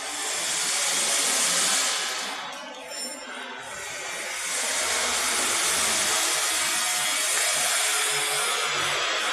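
A loud, steady hiss that swells twice, the second swell lasting about five seconds, with a short dip between.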